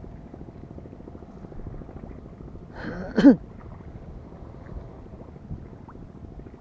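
Steady wind and sea noise on the microphone with a faint steady hum underneath. About three seconds in comes one brief, loud sound that falls in pitch.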